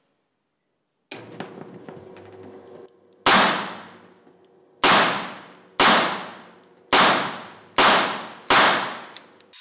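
Six shots from a Smith & Wesson 617 .22 LR revolver fired double action. The first comes about a third of the way in and the other five follow about a second apart, each with a short echo trailing off.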